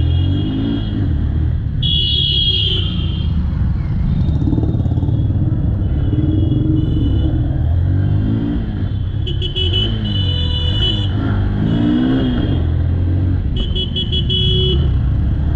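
Honda X-Blade's single-cylinder engine running in slow traffic, its note rising and falling as the rider accelerates and eases off, over a steady low rumble of road and wind. Vehicle horns honk in short bursts about half a dozen times.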